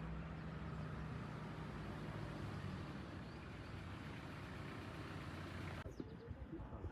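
Motor vehicles running in stalled traffic: a low steady engine hum over a haze of road noise, which drops away abruptly near the end.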